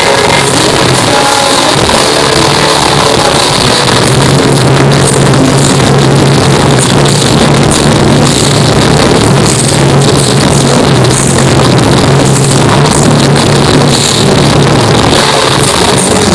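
A live rock band playing loudly, with electric guitars, bass and a drum kit, recorded from within the crowd with a phone, so the sound is heavily distorted. A low bass note is held from about four seconds in.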